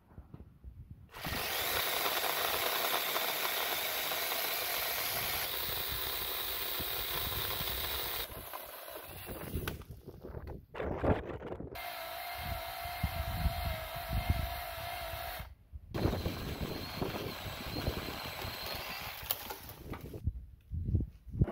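A small motor or power tool running steadily for several seconds, then in shorter runs that stop and start again, with a brief stop a little past the middle.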